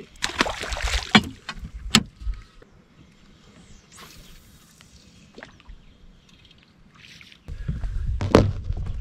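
Knocks, clatter and rustling of handling on a bass boat's deck, busiest in the first two seconds with a few sharp knocks. Near the end a low rumble starts, with one sharp clack.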